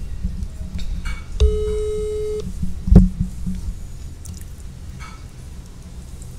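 Telephone ringback tone heard from a smartphone's speaker: one steady beep about a second long, the ringing signal of an outgoing call not yet answered. A sharp thump about three seconds in.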